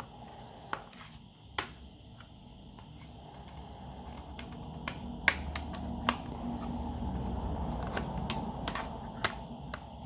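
Sharp plastic clicks as the snap-fit back cover of an Alcatel 3T8 tablet is pried off by hand, its clips letting go one after another, over a low rustle of handling.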